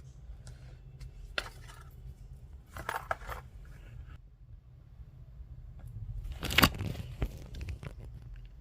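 Small handling sounds from unboxing: a few light clicks, a short rustle about three seconds in, and a louder sharp click about six and a half seconds in.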